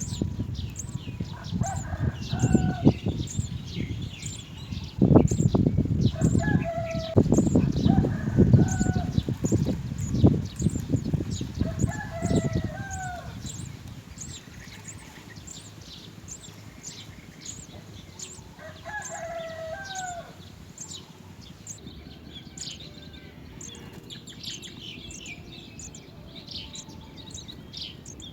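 House sparrows chirping, a steady run of short, high chirps, with lower calls now and then through the first two thirds and bursts of loud rustling in the first half.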